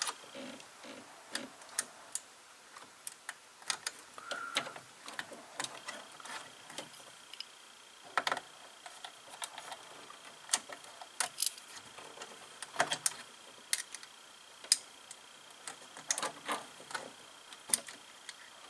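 Small screwdriver working the screw terminals of a CNC breakout board while wires are handled, making irregular light clicks and ticks. A faint steady high tone comes in about six seconds in and stays.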